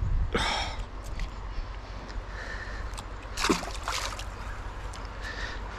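Water splashing at the surface of a shallow river: two short splashes, about half a second in and again around three and a half seconds, with a steady low rumble underneath.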